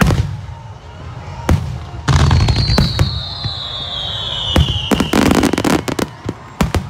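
Aerial firework shells bursting in a series of sharp bangs, with a falling whistle from about two to five seconds in, then a quick run of crackling reports around five seconds in.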